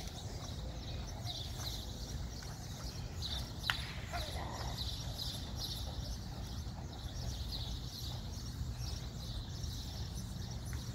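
Small birds chirping over and over, high and quick, over a steady low outdoor rumble, with one sharp click about four seconds in.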